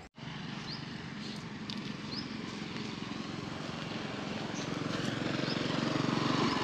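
An engine running and growing steadily louder, with a few faint short high chirps.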